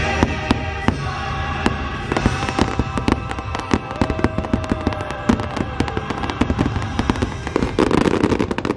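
A fireworks display going off: a rapid, dense run of sharp bangs and crackles, over show music that is plainest in the first couple of seconds.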